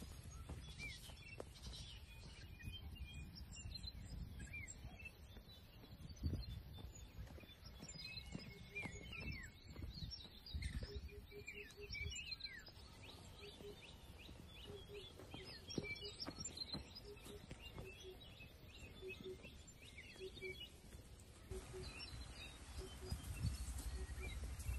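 Wild birds chirping in short sliding calls, with a low call repeated in short runs through the middle. Footsteps on a dirt path thud underneath.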